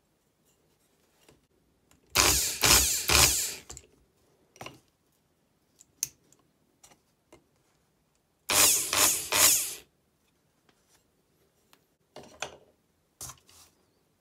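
Opened-up corded electric drill's motor and gears running in two short spurts of about a second and a half each, surging a few times within each spurt as the trigger is worked: a test run of the freshly rewired trigger switch. A few light handling clicks follow near the end.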